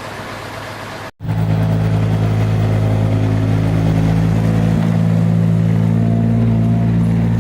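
A steady, engine-like motor hum. It cuts out for a moment about a second in, then comes back louder and holds steady.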